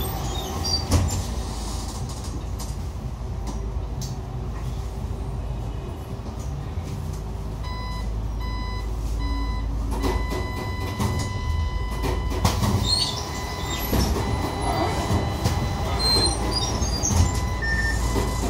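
Inside a Xiamen King Long XML6125 hybrid city bus: a steady low rumble with scattered rattles and knocks. About eight seconds in come a few short electronic beeps, then a longer steady beep, typical of the bus's door warning signal at a stop.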